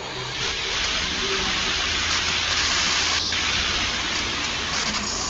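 A steady, even hiss with one faint click about three seconds in.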